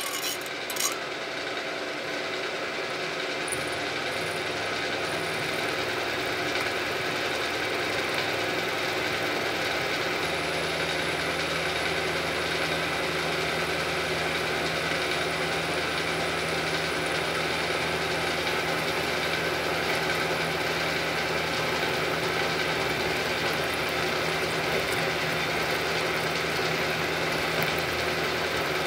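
Milling machine running, its end mill cutting into a round 1144 steel bar: a steady machining hum with a whine, a couple of sharp clicks near the start, the low hum growing stronger a few seconds in.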